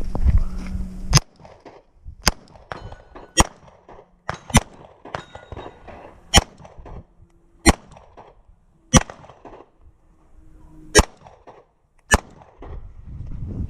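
Pistol shots fired one at a time during an IDPA stage: about nine sharp cracks, roughly a second or so apart with a longer gap near the middle. Faint ringing tones follow some of them.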